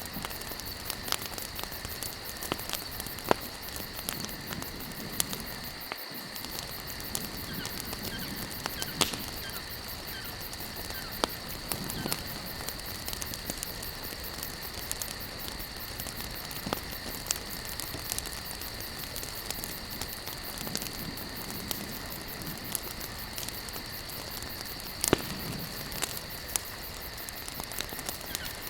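Wood campfire burning, crackling continuously with irregular sharp pops, a few of them louder. A steady high-pitched insect chorus runs underneath.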